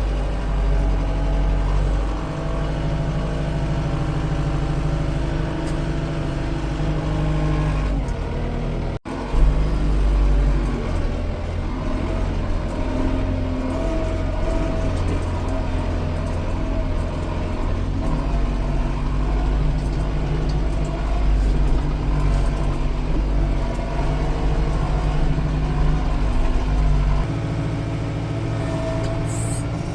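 Engine running steadily with a low rumble, its pitch shifting a few times. It breaks off abruptly about nine seconds in and comes straight back.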